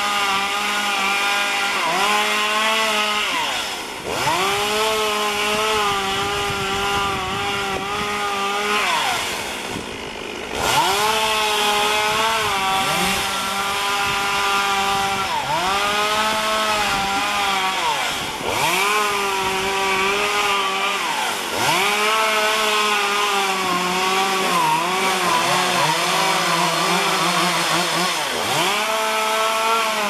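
Chainsaw running at high revs, its engine pitch dropping and climbing back up every few seconds as the throttle is eased and opened again.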